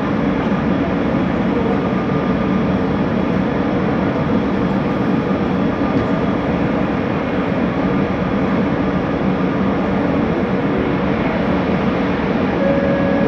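Bombardier Innovia ART 200 metro train heard from inside the car while running: a steady rumble from the running gear, with faint steady whining tones from its linear induction motors. Near the end a clearer steady tone comes in.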